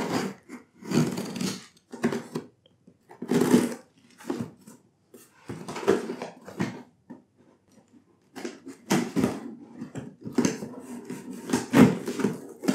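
Packing tape on a cardboard shipping box being cut and peeled open by hand, with the cardboard rustling: irregular bursts of tearing and scraping separated by short pauses.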